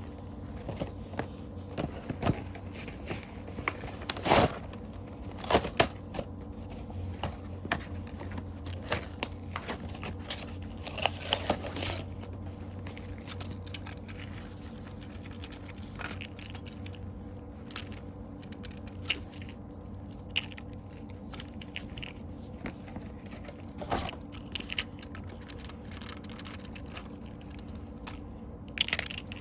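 Packaging being handled and opened by hand: scattered scrapes, crinkles and tearing, with a few sharper knocks about four to six seconds in, over a steady low hum.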